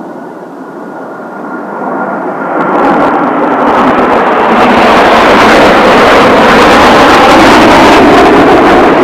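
Blue Impulse Kawasaki T-4 jet trainers, with their twin turbofan engines, pass close overhead. The jet roar swells over the first few seconds and then holds very loud and steady.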